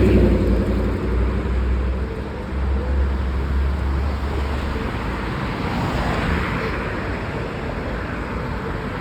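Road traffic: car and truck engines running and vehicles passing, a steady low rumble with tyre and engine noise that swells briefly as a vehicle goes by partway through.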